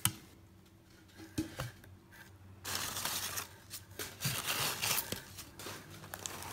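Crumpled newspaper packing rustling and crinkling as a hand digs through it in a styrofoam shipping box. The rustling starts about two and a half seconds in, after a quiet stretch with a few light knocks.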